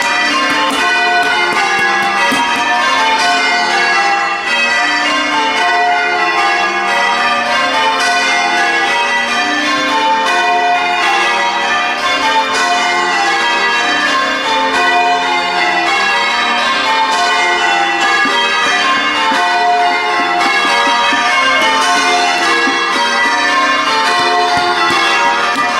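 Church bells of St James, Barrow-in-Furness, being rung in changes: a steady, continuous stream of overlapping bell strokes whose order keeps shifting.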